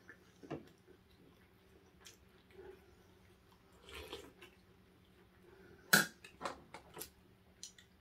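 Eating sounds: scattered clicks and small knocks of chewing and handling food. The sharpest click comes about six seconds in, followed quickly by a few more.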